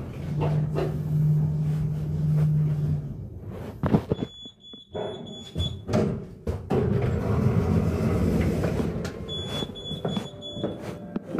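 Elevator signal beeping twice, each a steady high beep held for about a second and a half, about five seconds apart, with a rumbling stretch between them. Footsteps on a hard marble floor click throughout, and a steady low hum runs through the first three seconds.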